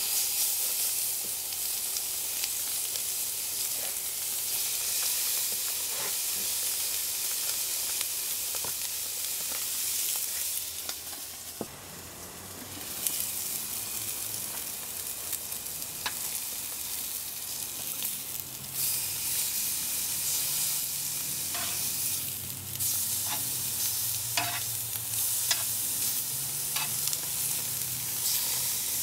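Thick steaks sizzling on hot grill grates, a dense hiss that starts suddenly as the first steak is laid down, with scattered pops and crackles of fat. The sizzle dips briefly near the middle, then comes back as strong.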